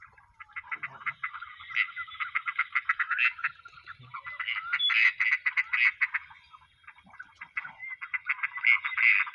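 Mixed duck calls: a rapid, chattering chorus of many calls a second. It starts about half a second in, fades briefly near the three-quarter mark and swells again near the end.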